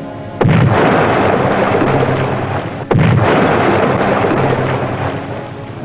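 Two underwater depth-charge explosions about two and a half seconds apart. Each starts suddenly with a deep blast and dies away slowly over a couple of seconds.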